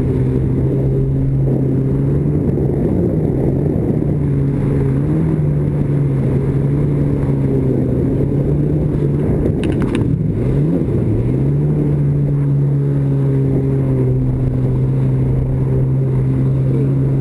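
Vintage stand-up jet ski's two-stroke engine running steadily at speed. About ten seconds in there is a brief click, and the engine note drops in pitch and climbs back as the throttle is eased and reopened.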